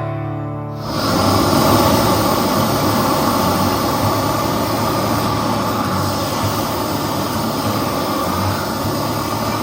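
Steady rushing mechanical noise with a low hum from a workshop tool at work on the wood, starting about a second in after a brief snatch of guitar music.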